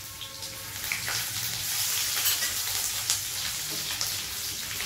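Chopped garlic and ginger sizzling in hot oil in a non-stick wok, with scattered small crackles, while a silicone spatula stirs them.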